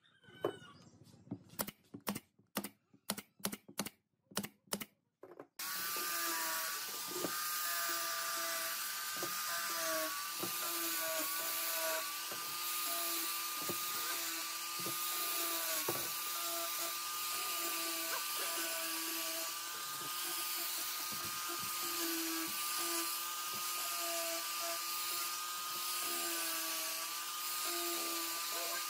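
A quick series of about ten sharp clicks, then an angle grinder starts abruptly about five seconds in and runs steadily with a high whine and a hiss, sanding the pine lamp frame. Its pitch dips briefly whenever the disc bears on the wood.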